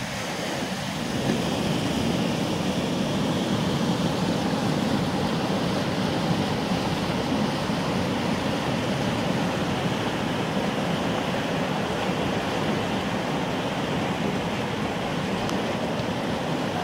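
Tidal rapids rushing steadily, whitewater churning through a standing wave in a fast saltwater channel.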